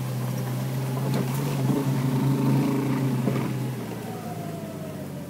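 Jeep engine pulling steadily in four-wheel-drive low range, first gear, heard from inside the cab. The engine note drops and quiets about four seconds in.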